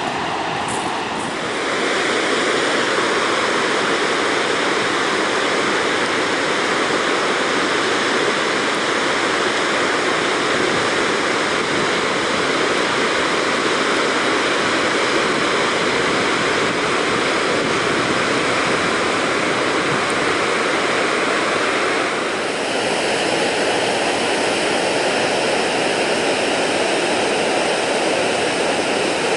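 Steady rushing roar of a large, powerful two-tiered waterfall. The noise changes character abruptly about a second and a half in and again about seven seconds before the end.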